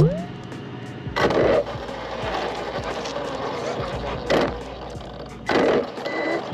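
Onboard audio of an Arrma Felony RC car with an 8S Spektrum 1250kv brushless motor: the motor whine rises sharply in pitch as the car launches and then holds, under a steady rush of wind and road noise. Three loud noisy surges come about a second, four seconds and five and a half seconds in.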